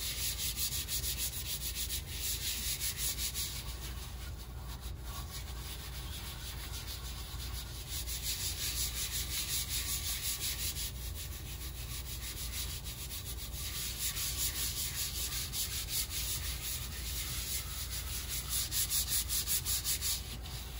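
Gloved hand scrubbing matte prep paste into a wet epoxy-coated tumbler, a steady run of quick rubbing strokes.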